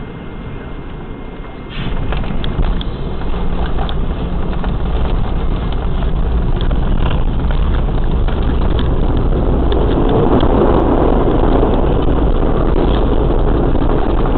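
Road and wind noise of a moving vehicle, a steady low rumble under a rushing hiss. It jumps louder suddenly about two seconds in and swells further in the second half.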